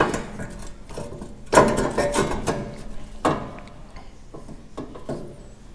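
Loose steel cab sheet-metal parts of a tractor clanking and rattling as they are handled and fitted in place, with three louder clanks that ring briefly, about a second and a half apart, and smaller knocks near the end.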